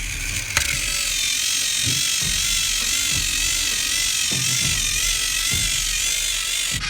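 Battery-powered TrackMaster toy train motors whining steadily under load, with a slight regular wobble in pitch, starting about half a second in. Background music plays underneath.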